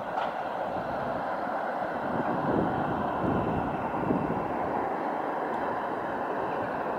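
Steady road traffic noise, swelling with a deeper rumble a few seconds in as a vehicle passes close.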